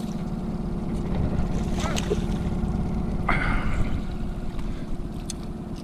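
Boat's outboard motor running steadily at trolling speed, a low even hum, with a short noise about three seconds in.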